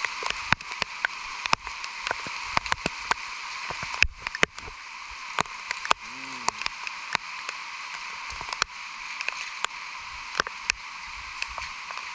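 Steady rain falling, a continuous hiss, with many sharp, irregular ticks of drops striking close by, including on the phone itself.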